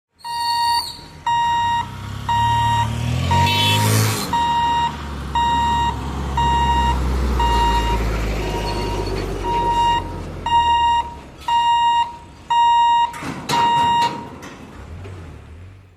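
Electronic warning beeper sounding a steady high beep about twice a second, stopping shortly before the end, over a low engine rumble that swells in the middle.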